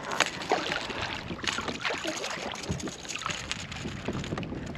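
Water splashing and sloshing irregularly around a kayak, with wind on the microphone.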